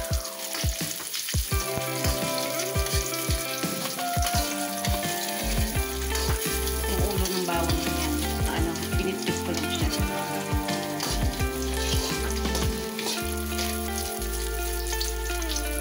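Onion, garlic and a bay leaf sautéing in a little oil in a wok: steady sizzling, with a utensil scraping and tapping the pan as it stirs. Background music with low bass notes plays underneath, strongest from about five seconds in.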